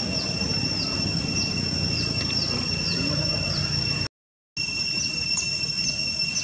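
Steady high-pitched insect drone with short falling chirps repeating every half second or so, over a low rumbling background. The sound cuts out completely for about half a second a little past the middle.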